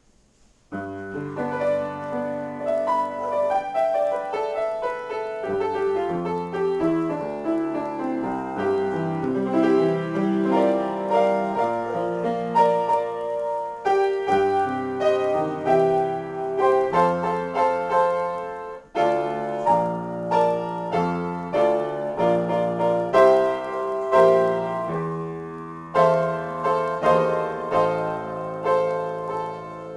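Solo piano improvisation, starting about a second in, with a continuous flow of notes and chords and a brief pause roughly two-thirds of the way through.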